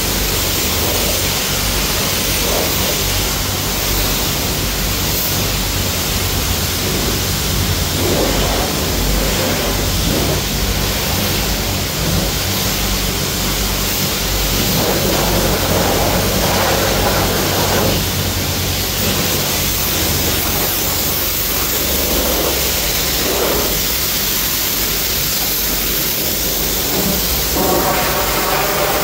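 High-pressure lance of a self-service car wash spraying foam and water onto a car, a loud, steady hiss of water spray.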